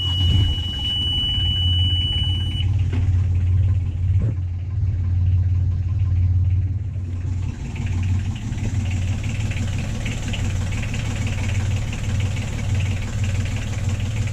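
An engine running with a steady low drone. A high, continuous beeping-alarm tone cuts off about two and a half seconds in.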